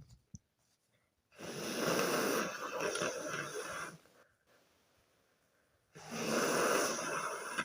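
A person blowing their nose twice: the first blow lasts about two and a half seconds, and the second starts about six seconds in.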